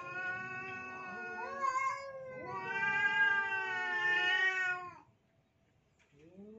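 Rival tomcats caterwauling at each other: long, drawn-out, wavering yowls that stop about five seconds in, with a new yowl starting a second later. It is the standoff yowling of males contesting a single female.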